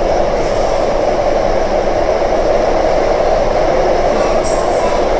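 Taipei Metro C371 train running through a tunnel, heard from inside the passenger car: a loud, steady noise of wheels and running gear that stays even throughout.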